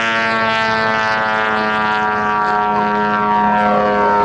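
The 150cc petrol engine and propeller of a giant-scale radio-control Extra 330L aerobatic plane, running at steady power in flight. It makes a loud, even drone that holds one pitch.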